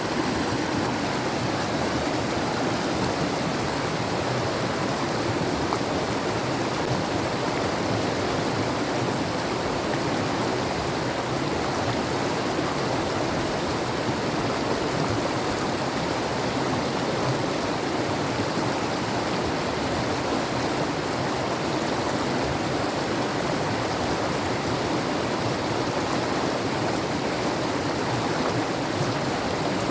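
Mountain river rushing: a steady, unbroken noise of flowing water.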